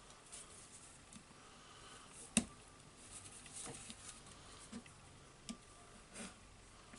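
Faint clicks and scrapes of a small screwdriver prying at plastic parts of a Makita DTW251 cordless impact wrench being taken apart, with one sharper click about two and a half seconds in and a few softer ones after it.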